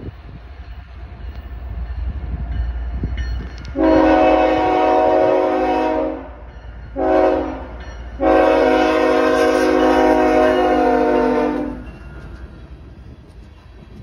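A diesel freight locomotive's air horn sounds a chord of several tones: one long blast, a short one, then another long blast as the train approaches. After the horn stops, the rumble of the passing locomotive and hopper cars on the rails is heard.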